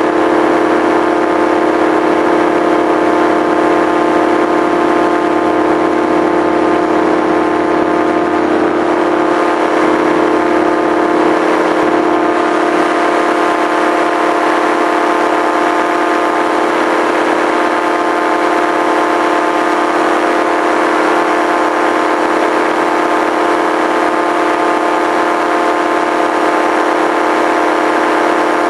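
Small aircraft's engine running steadily in level flight, an even drone with no change in pitch or loudness.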